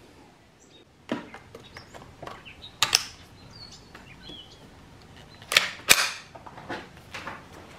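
Sharp metallic clicks and clacks from a Ruger 10/22 semi-automatic .22 rifle being made ready to fire: several small clicks, then a loud pair of clacks about two-thirds of the way through as the bolt is pulled back and let snap forward.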